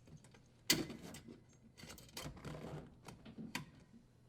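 Clicks and rattles of a dishwasher's power cord and strain relief being pulled free of the metal junction-box bracket: one sharp click about a second in, then several lighter clicks and rustles.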